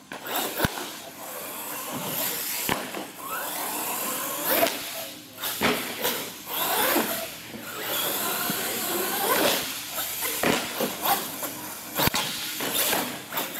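Electric motors of radio-controlled monster trucks whining, rising and falling in pitch again and again as the trucks accelerate and slow, with a few sharp knocks: about half a second in, near three seconds and near twelve seconds.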